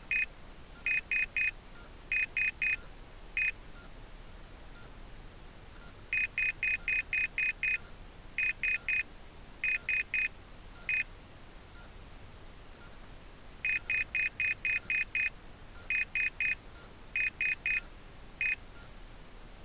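A high-power rocket's altimeter, lying landed, beeping out its peak altitude digit by digit: a run of seven short beeps, then three, three and one, for 7,331 feet. The sequence repeats after a pause of about three seconds.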